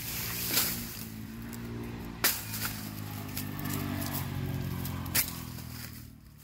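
Three sharp knocks of a machete chopping a bamboo pole, about half a second, two seconds and five seconds in, over the steady low drone of a running engine that fades near the end.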